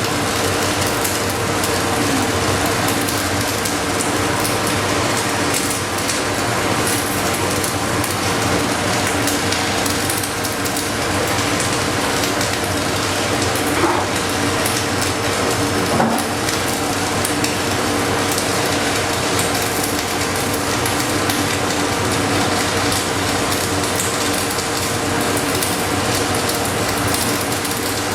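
Stick (MMA) arc welding with a 5.0 mm electrode at about 160 amps: the arc's steady crackling sizzle, with a low steady hum beneath it. Two short clicks come about halfway through.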